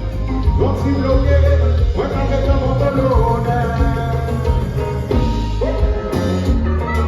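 Live kompa band playing a bass-heavy groove, with a singer sliding up into long held notes several times.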